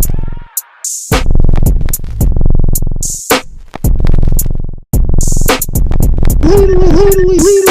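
Electronic beat: drum machine with heavy bass and ticking hi-hats, the beat dropping out briefly several times. A wavering pitched tone comes in near the end.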